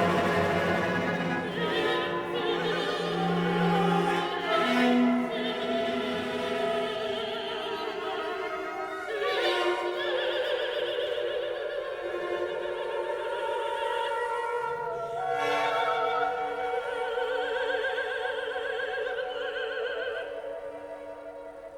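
Classical music: an operatic voice singing long, wavering notes with orchestral accompaniment, growing quieter near the end.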